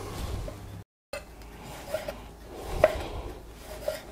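Kitchen knife slicing through cherry tomatoes on a wooden cutting board, the blade tapping the board a few times.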